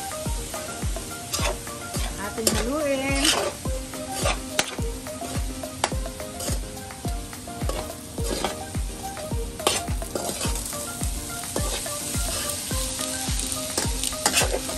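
A metal spoon scrapes and clinks against a stainless steel pot, stirring fried rice as it sizzles. Background music with a steady beat runs quietly underneath.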